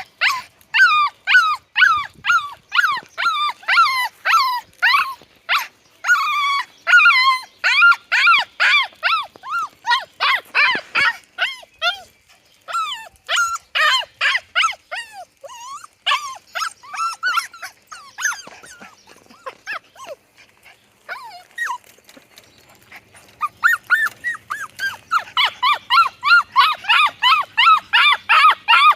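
Mini goldendoodle puppies yipping and whining in rapid, high-pitched bursts while playing tug of war. The calls ease off about two-thirds of the way through, then pick up again.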